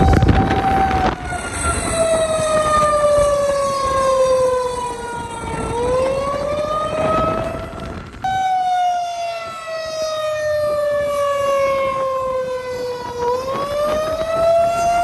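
A siren wailing: one pitched tone slides slowly down for about five seconds, then swings back up. About eight seconds in it breaks off briefly, then repeats the slow fall and rise.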